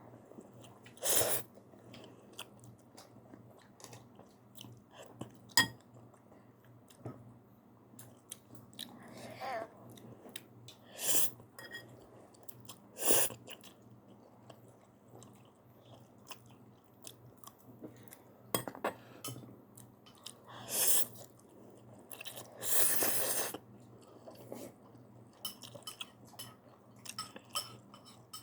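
A person eating instant ramen close to the microphone: chewing and wet mouth sounds with small clicks, broken by several short, louder noisy bursts.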